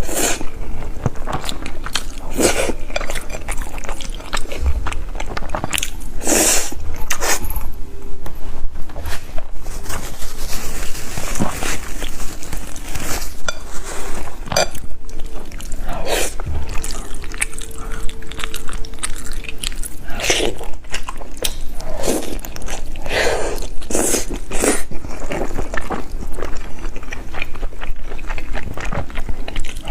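A person eating close to the microphone: irregular bites and chewing with some crunchy, wet mouth sounds.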